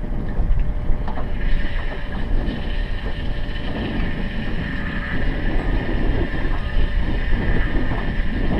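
Wind rumbling on the camera microphone with water noise around a small aluminium boat. From about a second in until near the end, a steady high whine runs above it.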